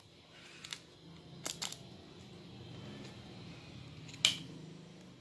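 Scissors cutting a cup-noodle cup: a few sharp snips of the blades, the loudest about four seconds in, over a low steady hum.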